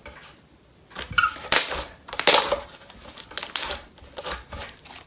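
Thick jelly slime (clear glue slime with instant snow) being squished and stretched by hand, giving irregular crackly, squelching bursts that start about a second in.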